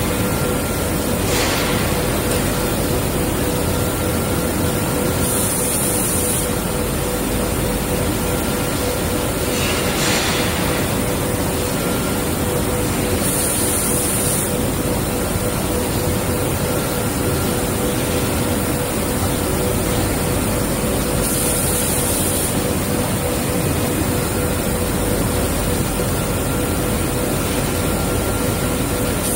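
Automatic powder coating booth running: a steady, loud noise from the booth's extraction and spray equipment, with a constant hum tone. A short burst of high hiss comes about every eight seconds, and broader hisses come about a second and a half in and again about ten seconds in.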